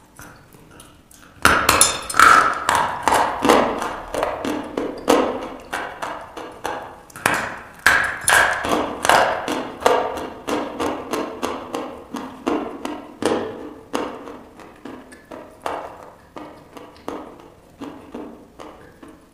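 A person bites into a piece of chalk with a loud snap about a second and a half in, then chews it with dense dry crunching, about three crunches a second, close to the microphone; the crunching grows quieter toward the end.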